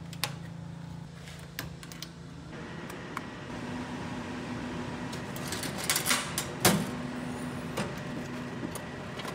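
Fortune Laser FL-C200 200 W pulsed laser cleaner being powered up and readied: a steady hum from the machine, with scattered clicks of the power switch and handling, and a cluster of louder clicks and a clunk about six to seven seconds in as the lid latches and storage compartment are opened.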